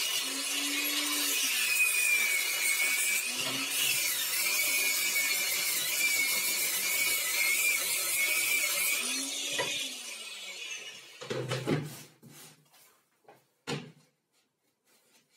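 Angle grinder with a sanding pad sanding a plywood edge: a loud high whine whose pitch dips and wavers as the disc is pressed into the wood. It is switched off about nine seconds in and winds down, followed by a few wooden knocks as the plywood fence is set down on the sled base.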